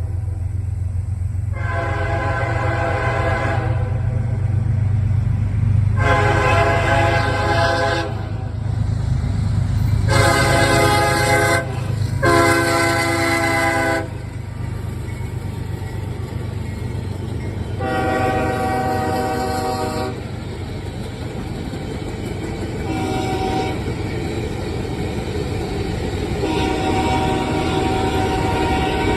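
A CSX diesel freight locomotive's multi-note air horn sounds about seven separate blasts, some long and some short, over the steady low rumble of the engine pulling freight cars.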